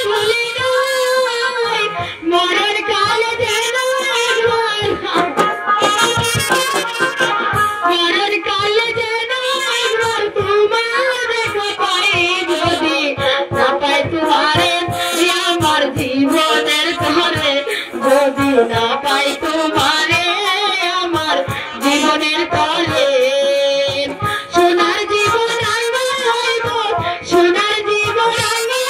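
A woman singing a Bengali jatra folk song of separation (bichchhed gaan) into a microphone, with live instrumental accompaniment and steady drum strokes.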